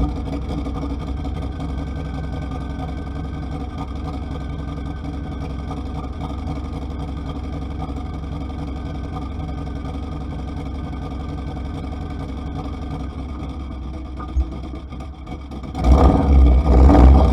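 Steady engine and road noise heard from inside a moving Ineos Grenadier's cabin. About sixteen seconds in, a much louder rushing surge lasts for over a second.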